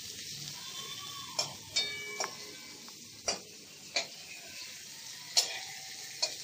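Pointed gourd pieces sizzling in oil in a metal kadai, with a metal spatula knocking and scraping against the pan about once a second, a few strikes ringing briefly.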